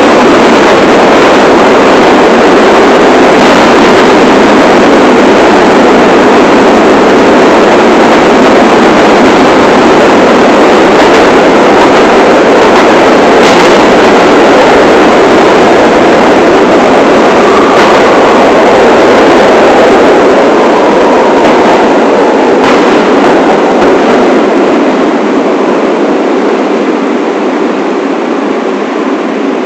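New York City subway train (1 line) running on the rails: a loud, steady rumble and rattle with a few faint clicks. It grows somewhat quieter over the last several seconds.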